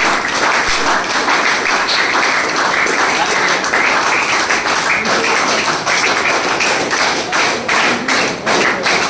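A roomful of students applauding: dense clapping that thins into separate claps near the end.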